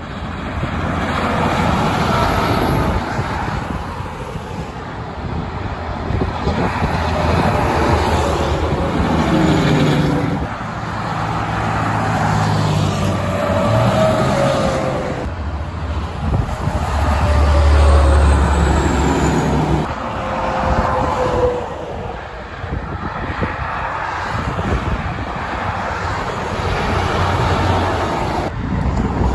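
Highway traffic with semi-trucks and cars going by one after another: the diesel engine rumble and tyre noise swell and fade as each vehicle passes, with the pitch dropping as it goes by. The heaviest rumble comes a little past the middle.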